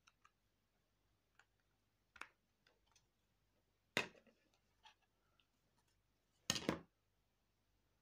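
Small plastic clicks and knocks from an Alcatel OT-880 slide phone being handled as its back cover is taken off: scattered light clicks, a sharp snap about four seconds in, and a quick cluster of louder clacks near the end.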